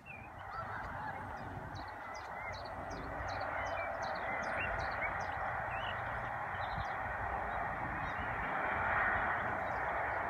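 Distant passenger train running along the line, a steady rushing noise that grows louder over the first few seconds and then holds. Small birds chirp high above it.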